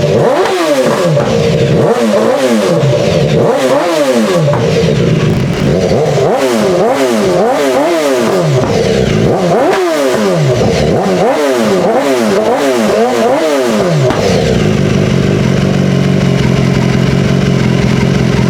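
BMW S1000XR inline-four engine breathing through a Firetong aftermarket exhaust, revved again and again in quick throttle blips, the pitch rising and falling with each. About 14 seconds in it settles to a steady idle. It sounds really mean.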